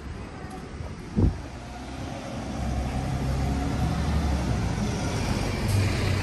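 Street traffic: a vehicle engine running with a low, steady hum that grows louder from about two and a half seconds in. A short, sharp thud about a second in is the loudest sound.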